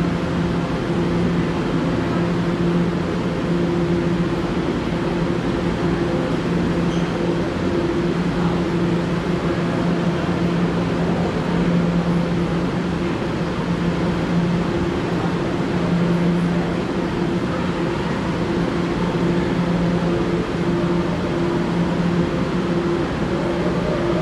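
Steady rumble and low electrical hum of an underground subway station, with two low tones holding steady and swelling slightly now and then.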